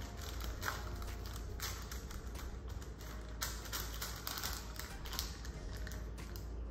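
Fingertips pressing a crumbly slice base down into a baking-paper-lined slice pan: quiet, irregular taps and paper rustles.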